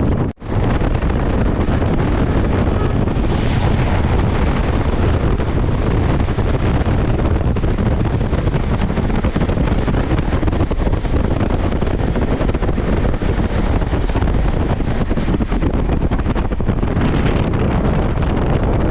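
Wind buffeting the microphone from a moving train, over the steady rumble of the train running, with a brief dropout just after the start.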